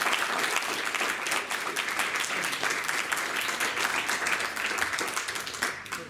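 Audience applauding: many hands clapping together, dying away near the end.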